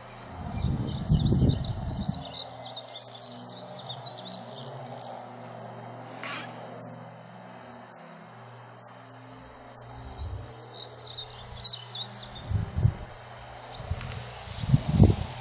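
Outdoor pasture ambience: small birds chirping on and off over insect sounds, with low rumbling bursts in the first couple of seconds and again near the end.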